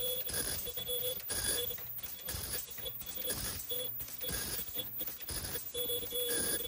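Automatic N95 mask-making machine running: a steady mechanical clatter from the pneumatic ear-loop attaching station, with a short high-pitched ringing tone about once a second.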